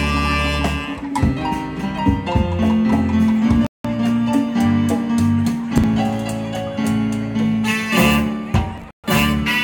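Live band playing, with saxophone, drum kit, electric guitar and keyboard. The sound cuts out completely for a split second twice, once near the middle and once near the end.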